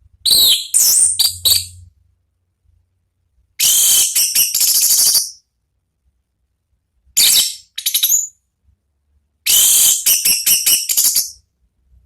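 Orange-headed thrush (anis merah) singing full-voiced 'ngeplong' song: four phrases of rapid, high whistled notes, each lasting one to two seconds, separated by pauses of about one and a half to two seconds.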